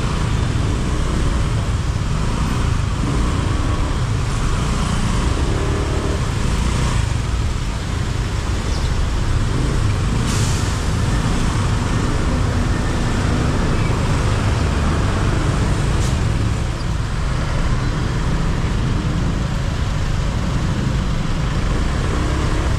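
Steady city traffic heard from a motorbike riding among cars, buses and trucks: a constant low rumble of engines and road noise. A brief hiss about ten seconds in.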